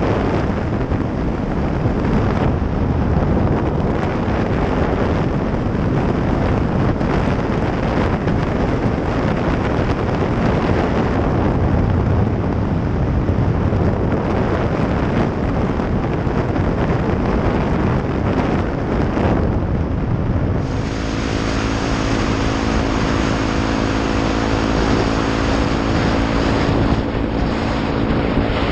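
Honda Grom's 125 cc single-cylinder engine with a Pro Circuit aftermarket exhaust running at a steady cruise, buried under heavy wind rumble on the helmet microphone. About twenty seconds in, the wind drops and the steady engine note comes through clearly.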